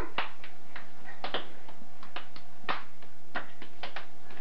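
Children's hands clapping together and slapping each other's palms in a hand-clapping game: a quick, uneven run of sharp claps, several a second.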